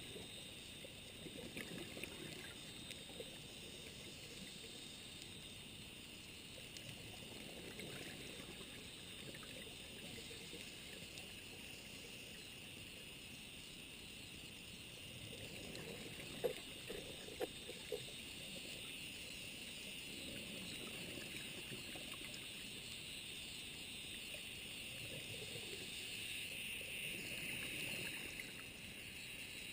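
Faint underwater ambience recorded on a scuba dive: a steady hiss with softer low swells every few seconds, and a few sharp clicks about sixteen to eighteen seconds in.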